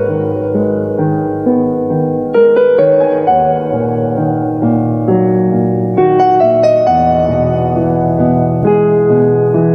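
Background piano music, slow and gentle, with chords struck about once a second.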